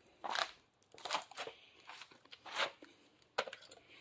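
Handling noises: a handful of short scrapes and rustles, about five in four seconds, as tools and metal parts are moved about.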